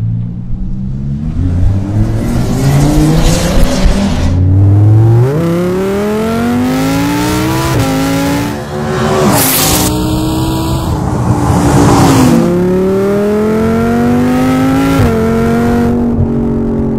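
Lamborghini Huracán's V10 engine, running through a new exhaust, accelerating hard through the gears. The pitch climbs in each gear and falls back at each of several upshifts.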